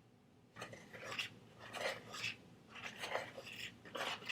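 Utensil scraping and stirring in a mixing bowl of dry flour, baking soda and salt: a run of short scraping strokes that starts about half a second in and comes faster near the end.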